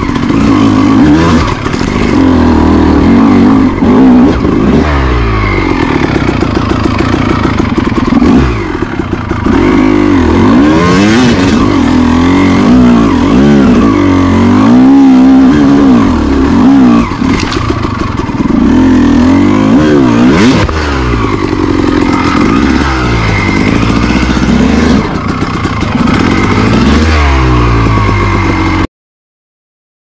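Honda CR250R's two-stroke single-cylinder engine revving up and down again and again as the dirt bike is ridden over rough ground, with clattering from the bike. It cuts off suddenly near the end.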